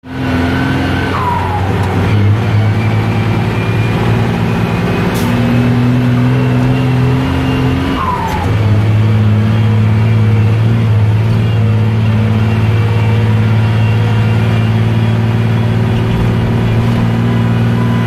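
Heavy truck's engine running steadily while driving, heard from inside the cab. The engine note breaks and settles at a new pitch about two seconds in and again about eight seconds in, each time with a short whine falling in pitch, as at a gear change.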